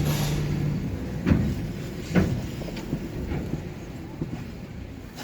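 Low vehicle rumble with a brief low hum at the start and three short knocks about a second apart, gradually getting quieter.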